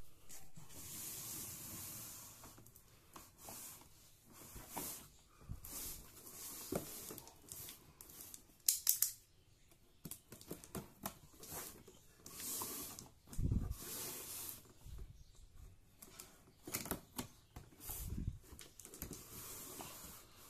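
Utility knife slicing packing tape on a cardboard shipping box, with tape tearing, cardboard scraping and the box being handled in irregular short bursts, and a few sharp clicks about nine seconds in.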